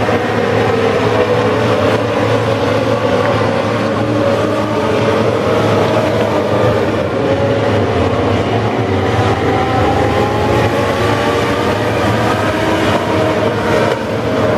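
A pack of Legends race cars running at racing speed, several high-revving Yamaha motorcycle engines overlapping, their pitch rising and falling as the cars pass and change speed through the turns.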